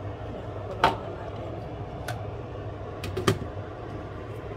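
Stainless steel pot lid knocking against the pot as it is handled and set on, two sharp clinks about two and a half seconds apart, over a steady low hum.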